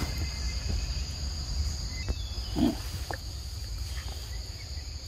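Steady high-pitched drone of an insect chorus, with a low rumble underneath and a brief low sound about two and a half seconds in.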